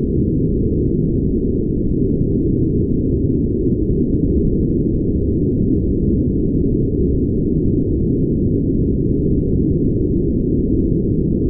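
Brown noise: a steady, deep rushing hiss with all its weight in the low end and nothing high above it, unchanging throughout.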